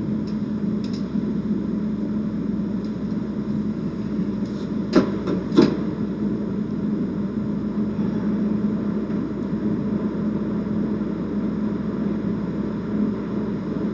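Casino chips clicking together twice, sharply, about five seconds in, as they are handled on a craps table. A steady background hum with a low drone runs under them throughout.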